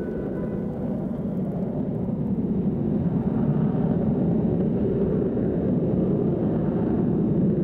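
Engines of a low-flying formation of Grumman warplanes, piston-engined fighters with an F-14 Tomcat jet, passing overhead. A deep, even rumble that swells louder about three seconds in.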